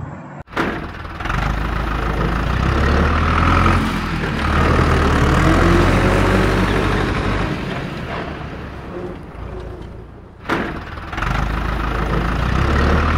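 Tractor engine running with a steady low rumble, cut off abruptly about half a second in and again about ten and a half seconds in.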